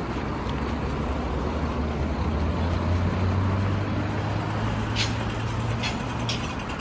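Motor vehicle running close by: a steady low engine hum that swells in the middle, over street noise, with a few short clicks near the end.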